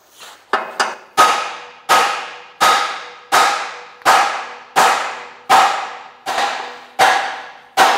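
Hammer blows on a steel Toyota BJ40 Land Cruiser chassis rail, about ten strong strikes at a steady pace of roughly three every two seconds after two light taps, each one clanging and ringing. The rail is being beaten to straighten a bent section flat again.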